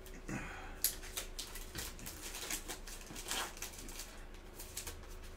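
Clear plastic shrink-wrap crinkling as it is peeled off a cardboard box, with irregular crackles, clicks and small knocks from the box being handled.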